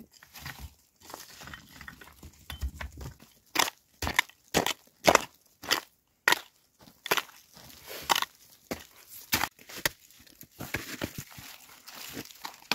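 A hand digging tool chopping into stony, gravelly soil: a run of sharp strikes about two a second, with loose stones and earth scraping and rattling between them.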